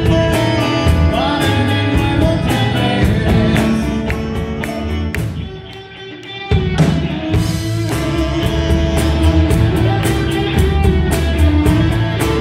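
Live rock band playing with electric guitars, bass guitar and drums. About halfway through the music thins and drops almost away, then the full band comes back in together.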